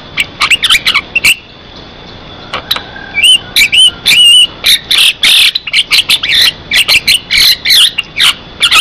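Javan myna (jalak kebo) singing in a loud, fast, chattering stream of sharp clicks and warbled whistles. The bird pauses for about a second near the start, then resumes with a dense run of notes.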